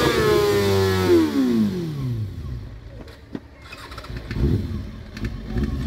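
Sport motorcycle engine at the end of a burnout: held at high revs, then the revs fall away over about two seconds to a low idle, with short throttle blips near the end.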